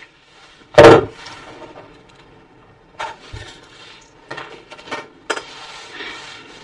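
A smartphone handled on a wooden table: one loud thump about a second in as it is set down, then a few lighter clicks and knocks.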